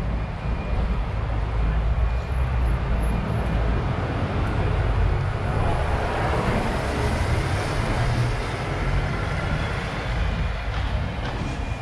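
City street traffic rumbling, with a double-decker bus passing close by, loudest about halfway through.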